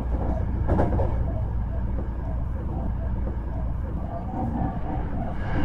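Hankyu 1300 series electric train running between stations, heard from inside the car: a steady low rumble of wheels on rail, with two brief knocks, one about a second in and one at the end.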